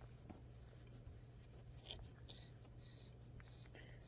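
Faint, irregular scratchy strokes of a Willard's Tipper trimmer's blades shaving a Kamui Super Soft cue tip as the cue shaft is turned in it by hand.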